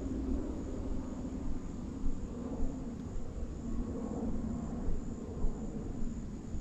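A steady low rumble, with a faint, thin, high insect drone running over it throughout.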